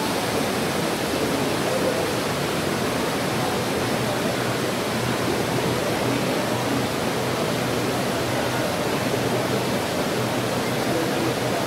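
Steady rush of flowing water, an even hiss and roar that holds at one level throughout.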